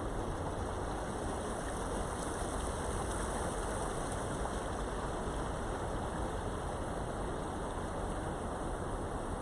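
Steady rushing of flowing stream water, an even unbroken wash of noise with a low rumble beneath it.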